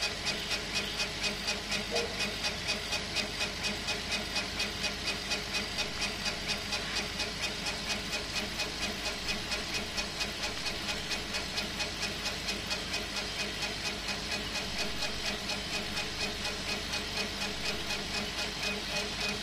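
CO2 laser engraver running a job on plywood: the head sweeps back and forth in an even rhythm of about three strokes a second over a steady machine hum.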